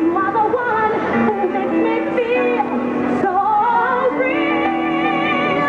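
Music with a singing voice, a wavering sung melody over held backing notes, played loudly through a hall's sound system.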